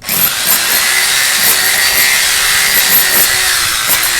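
240-volt electric chipping hammer starting up suddenly and running steadily, its chisel breaking into concrete.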